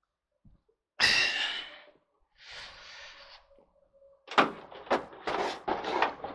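Handling noise from a plastic Cuisinart drip coffee maker being carried and moved about: a loud rustle about a second in, then a quick run of sharp knocks and clacks near the end.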